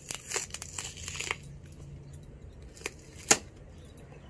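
Cardboard Borax box being torn open by hand: a quick run of tearing and crinkling in the first second and a half, then a single sharp snap a little after three seconds.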